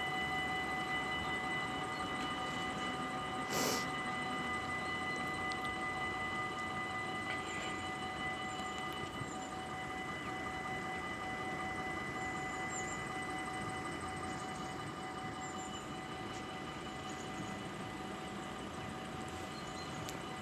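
Dutch level-crossing warning bell ringing steadily, its several tones held throughout and slowly fading, with a sharp knock about three and a half seconds in.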